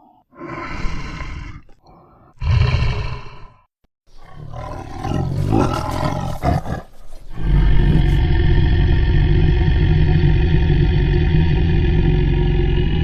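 Monstrous bear roar sound effect: two short growling roars, a longer rough roar, then from about halfway a long, loud, steady roar held on one deep pitch.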